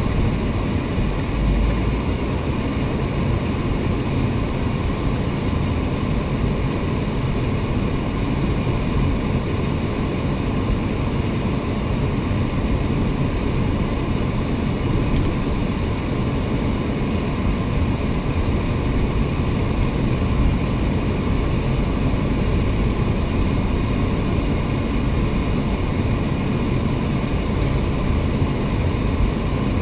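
Steady low engine and road noise inside a moving car's cabin, picked up by a phone on the dashboard.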